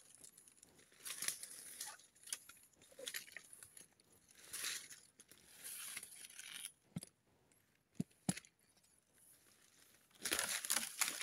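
Footsteps crunching and rustling through dry leaf litter on a forest floor, in irregular bursts, with a few short sharp snaps in the second half and a louder stretch of rustling near the end.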